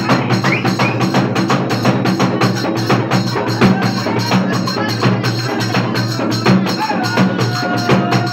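Loud festival drumming: percussion beaten in a fast, even rhythm, with crowd voices underneath.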